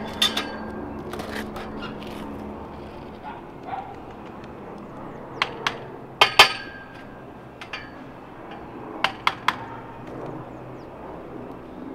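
Hammer striking a steel pipe handrail and its metal fittings: sharp metallic clanks in small groups, the loudest pair about six seconds in, ringing briefly.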